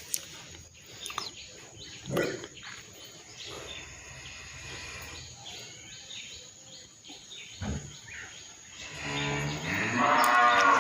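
Small birds chirping and twittering again and again, with a longer pitched call that rises near the end.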